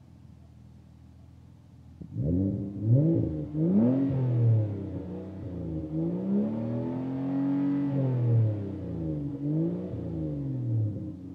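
A 2010 Ford Fusion's 3.0-litre V6 through a dual Flowmaster exhaust, idling and then revved. Several quick blips begin about two seconds in. A longer, slower rise and fall of the revs comes in the middle, then a few more short blips before it drops back to idle near the end.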